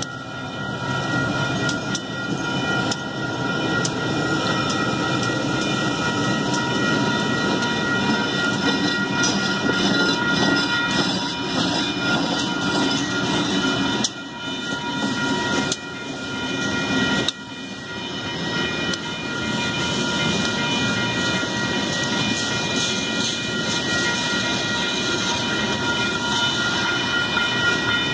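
Freight train passing close by: a string of diesel locomotives, among them an SD90/43MAC, running past, followed by freight cars rolling by with their wheels clacking over the rails.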